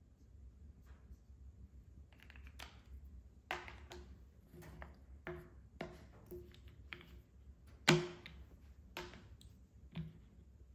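Wooden base-ten hundreds flats (MAB blocks) knocking against each other and the table as they are handled and stacked, a dozen or so irregular clacks, the loudest about two-thirds of the way through.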